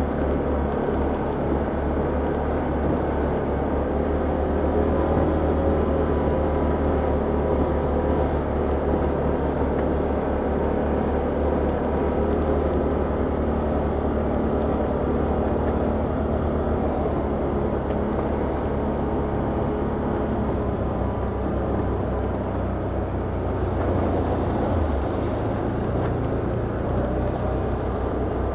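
Can-Am Outlander ATV engine running steadily under way on a trail, its note shifting slightly near the end.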